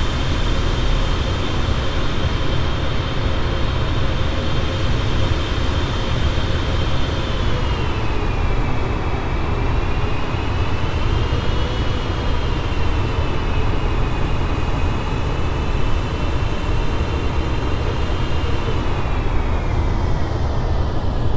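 Airbus A380's four turbofan engines on approach: a steady jet rumble with high whining fan tones that waver in pitch and slide downward near the end, under heavy low wind noise.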